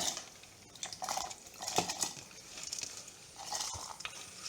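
Scattered clinks and knocks of kitchen vessels as a bowl and a mixer-grinder jar are handled while soaked rice and lentils are tipped into the jar.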